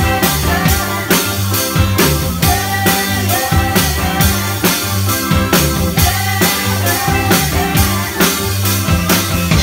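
Live band playing loudly: a drum kit keeps a steady beat under bass and guitar, and a woman sings lead into a microphone.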